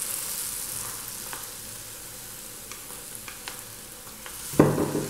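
Besan-batter-coated potatoes sizzling in hot oil as they are lowered in to deep-fry, the oil bubbling with a steady hiss. A few faint clicks of the spoon, and a brief louder thump near the end.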